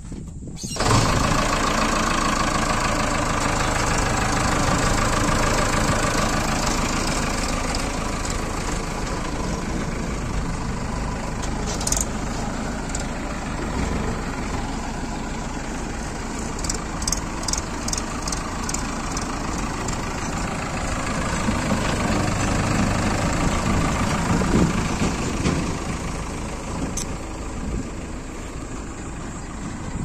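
JCB 3DX backhoe loader's diesel engine starting about a second in, then running steadily, with a few light clicks and rattles from the machine partway through.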